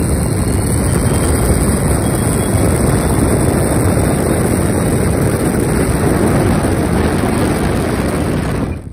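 Freewing L-39's 80mm electric ducted fan, driven by a brushless outrunner motor, running steadily with a loud rush of air. It winds down just before the end.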